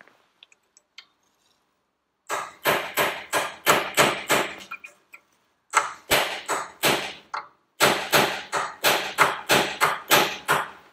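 A hammer tapping a steel punch to drive a fitting further along a shaft held in a vise, setting its position. Three runs of quick, sharp metal taps, about four or five a second, starting about two seconds in.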